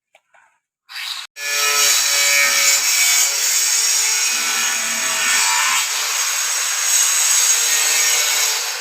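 A power tool cutting or abrading material, starting about a second and a half in and then running steadily and loud.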